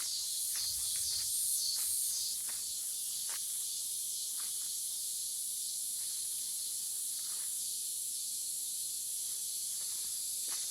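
Cicadas singing: a steady, high-pitched, unbroken buzzing drone.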